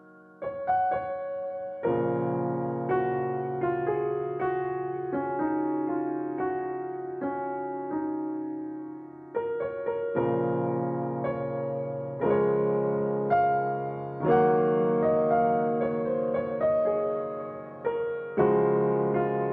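Piano music: chords struck about once a second and left to ring.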